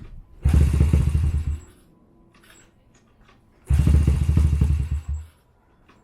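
Honda Gorilla's small single-cylinder engine run up in two short loud bursts of about a second each, with near quiet between them.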